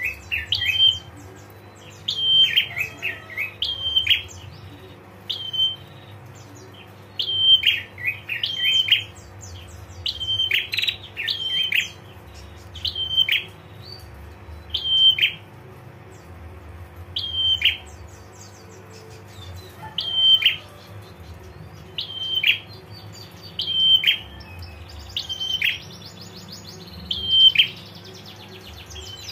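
Prenjak (prinia) giving the female's 'ngetir' call, the call used to draw a male to respond: short, sharp notes repeated every one to two seconds, sometimes in quick clusters, over a steady low hum. A fast run of dry ticks comes near the end.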